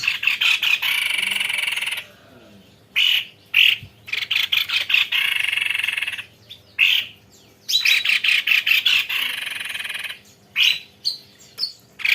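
White-necked babbler singing its long rolling song: fast trills of rapidly repeated notes, each lasting about two seconds, three times over, with short single calls between them.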